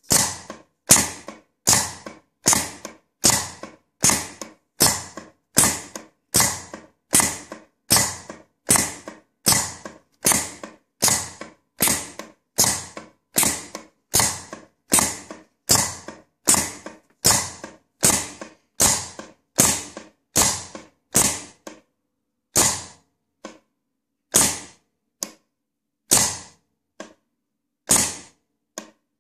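Extruder cutter mechanism cycling: a sharp clack about every 0.8 s, each with a short ringing tail. In the last several seconds the clacks come further apart and at uneven spacing, with fainter clicks between them.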